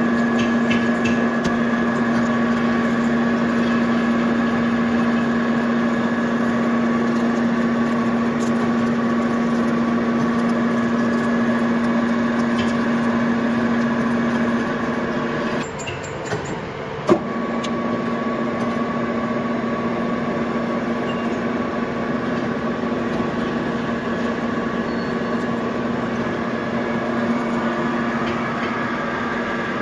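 Metal lathe running with a steady machine hum. The hum drops briefly about halfway through, with one sharp knock in the dip, then carries on.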